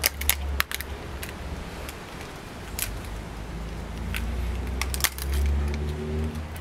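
Charcoal-grilled banana-leaf wrapping crinkling and crackling as hands peel it open. Scattered sharp crackles come in a cluster at the start and again around five seconds in, over a steady low hum.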